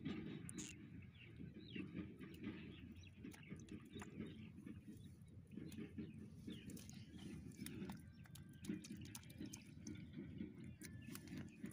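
Faint wet rustling and small scattered clicks from a wet monofilament fishing net being pulled through the hands and fish being picked from its mesh on mud, over a low uneven rumble.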